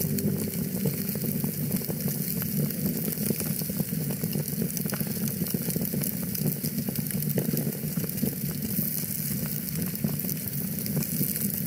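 Wood fire crackling in a fireplace: a steady low rush of burning with many small, scattered pops and snaps.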